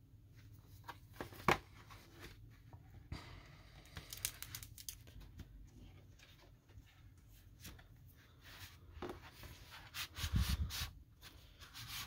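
Cardboard record jacket and paper inner sleeve being handled and slid out of the jacket: rustling and scraping with scattered taps, the sharpest about a second and a half in, and a few low thumps near the end.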